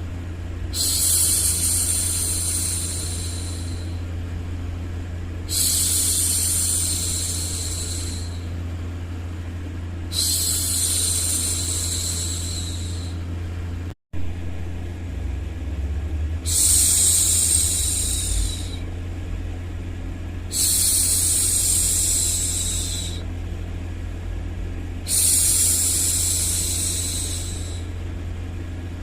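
A woman's voice making long, slow 'shhh' hushing sounds, six of them, each about three seconds long and coming roughly every four to five seconds, over a steady low rumble. The sound cuts out for an instant about halfway through.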